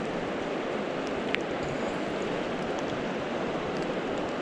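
Shallow river running over stones: a steady rushing of water, with one brief click about a second in.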